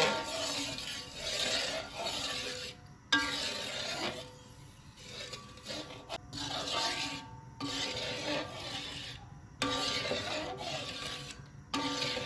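Spatula scraping and rubbing against a pan as thick sugar-palm-starch batter is stirred, in several short stretches that start and stop abruptly.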